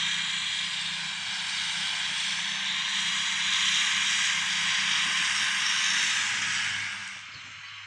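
Fendt 826 Vario tractor running under load with its triple Kuhn mowers cutting grass: a steady engine note beneath a loud, dense high hiss. It drops away sharply about seven seconds in.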